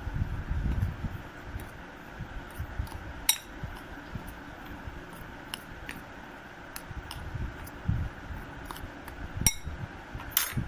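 A dry flour mixture being stirred in a bowl: soft rubbing and scraping, with a few sharp clinks of the utensil against the bowl.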